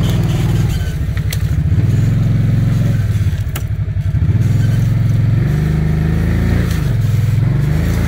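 A motor vehicle's engine running loudly and steadily, its pitch dipping and then rising again about two-thirds of the way through, with two short sharp clicks early on.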